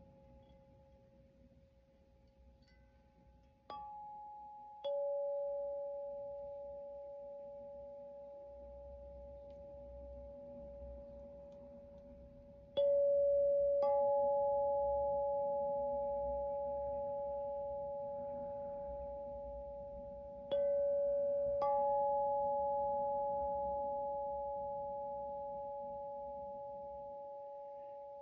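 Two singing bowls at two different pitches are struck one after the other, a second apart, in pairs about every eight seconds. Each rings on as one steady, pure tone with a long, slow fade.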